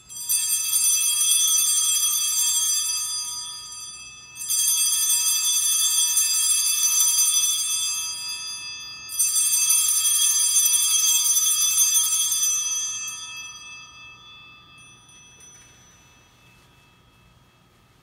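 Altar bells rung three times, about four to five seconds apart. Each ring is a sudden burst of high ringing from several small bells together that holds for a few seconds, and the last one fades out slowly. The bells mark the priest's blessing with the monstrance at Benediction.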